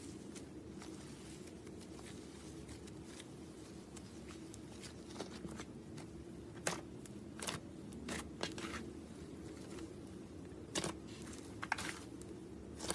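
Slime being squeezed and poked by hand, giving a handful of sharp, irregular clicking pops, mostly in the second half, over a steady low hum.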